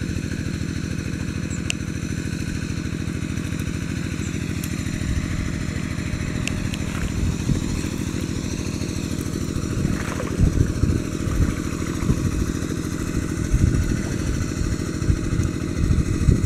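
The small engine of a water pump draining the pond, running steadily at an even speed. From about ten seconds in, irregular dull thumps come through over it.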